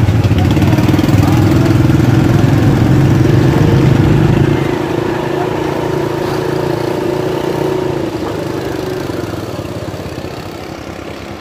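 Small motorbike engine running steadily and loudly, then easing off about four to five seconds in and slowly fading.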